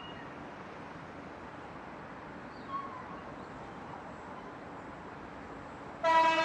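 Faint steady background noise with a short chirp about midway, then a locomotive horn blasts suddenly near the end, loud and steady in pitch, from a freight train approaching on the line.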